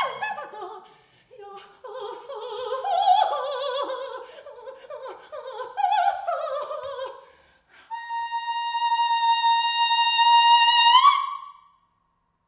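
Solo soprano singing short, expressive operatic phrases with a wide vibrato, with no other instrument heard. About eight seconds in she holds one long, straight high note for some three seconds, which swoops upward at the end and breaks off.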